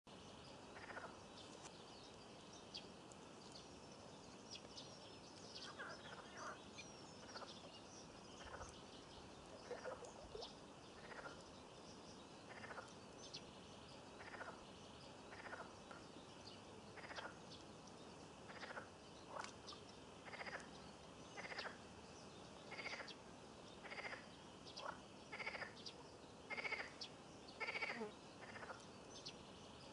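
Frogs calling from the pond in short, repeated croaks, roughly one every second or so, growing louder toward the end, with small birds chirping faintly above them.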